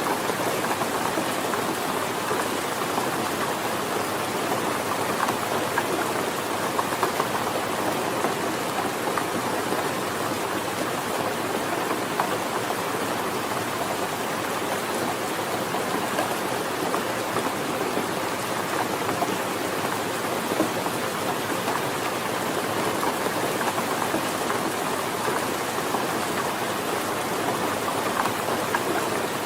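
Steady rain falling, an even hiss of rain with many small drop ticks.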